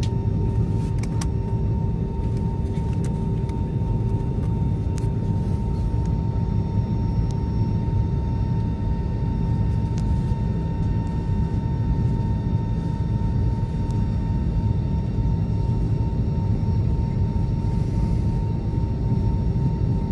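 Jet airliner cabin noise: a steady low rumble of engines and air flow with a constant hum tone, and a few faint clicks in the first few seconds.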